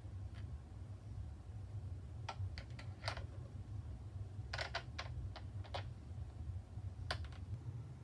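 Small metal hardware (washers, nuts and a small bracket) clicking and clinking as it is handled and fitted by hand: scattered clusters of sharp clicks over a steady low hum.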